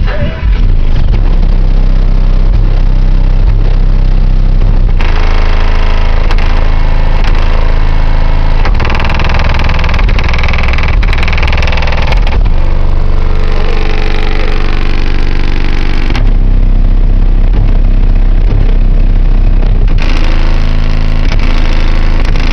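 Bass-heavy music played very loud through car subwoofers (18-inch subs in a ported box), with deep sustained bass notes that shift as the song changes section a few times.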